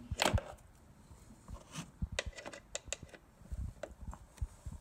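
Irregular clicks and small knocks from the LR4 lower tailgate's release cable and latch as the cable is pulled down and fitted to the latch. The loudest is a cluster of clicks about a quarter second in, and scattered single clicks follow about two to four seconds in.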